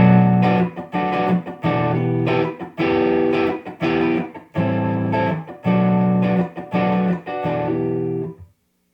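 Electric guitar playing a short lick of about nine chord stabs through a Bludotone Mini 80's Classic amp, with a tube preamp and a Class-D power amp, played clean. The playing stops shortly before the end, leaving a faint amp hum.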